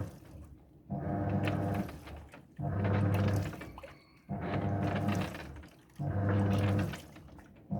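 Washing machine in its wash cycle: the drum motor hums in bursts of about a second, four times, with short pauses between as it turns the drum back and forth, and water sloshing in the drum.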